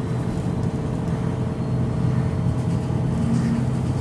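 MAN NG313 articulated bus's D2866 LUH turbocharged, horizontally mounted inline-six diesel running steadily under way, heard from inside the passenger cabin.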